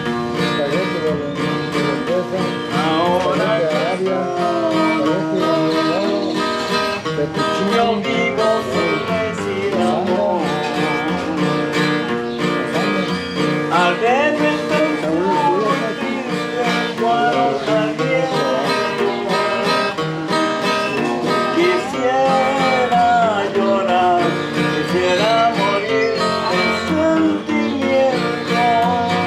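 Acoustic guitar strummed and picked in a lively folk rhythm, with a man's voice singing a wavering melody over it.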